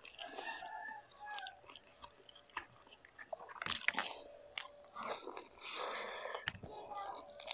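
Close-up chewing and biting of fast food, with irregular crunches and mouth noises.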